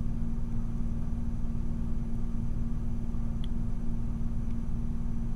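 A steady low electrical or machine hum with rumble beneath it, and a couple of faint ticks from a pick working the pins of a dimple lock cylinder.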